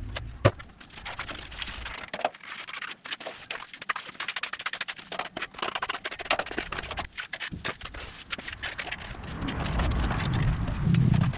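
Hand trowel scraping and smoothing fresh concrete, with many short irregular scrapes and taps. A low rumble swells near the end.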